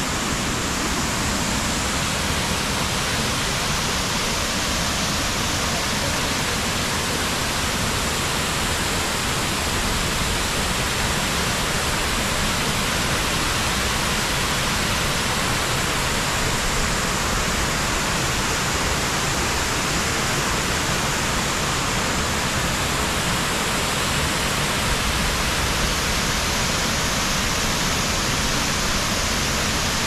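Small waterfall pouring over a rock ledge into a creek: a steady, even rush of water with no break.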